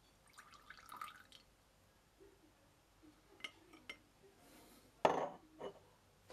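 Water poured from a glass graduated cylinder into a glass beaker onto borax powder, a short trickling splash about half a second to a second and a half in. Then a few light glass clicks, and about five seconds in a louder glass knock with a smaller one just after.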